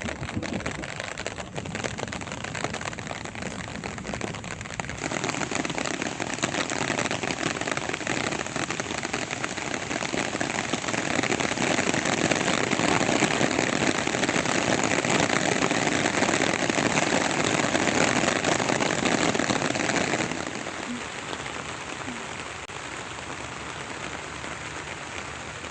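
Rain falling steadily, growing heavier about a fifth of the way in, heaviest through the middle, then easing back suddenly near the end.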